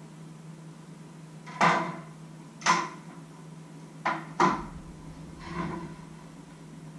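Sharp wooden knocks, five of them at irregular intervals, from a knife and a small wooden cutting board being handled and set down on a wooden worktop. A steady low hum runs underneath.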